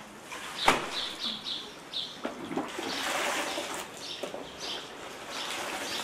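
Licorice-root sherbet being scooped and poured back from a height into a metal basin, splashing into the foam; this repeated pouring is how the sherbet is aerated and brewed. A sharp knock comes under a second in, and short high chirps follow.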